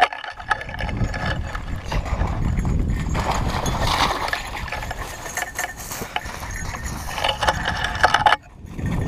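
Footsteps tramping through marsh grass and brush, with rustling and crackling of the stems against the body-worn camera and a low rumble of handling or wind on its microphone. The sound cuts out briefly about eight and a half seconds in.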